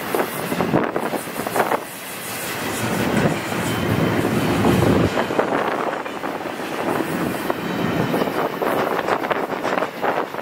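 Double-stack intermodal container freight train rolling past at close range, its steel wheels rumbling and clicking over the rails in a steady, dense clatter.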